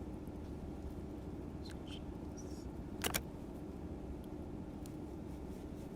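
Steady low hum of room noise, with a sharp double click about three seconds in and a few faint ticks before it.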